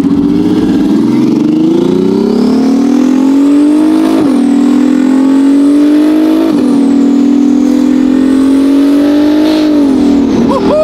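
Twin-turbocharged Ferrari F12's V12 accelerating hard through the gears: the revs climb, drop sharply at two upshifts about four and six and a half seconds in, climb again, then fall away near the end. A faint high whistle rises and falls above the engine note.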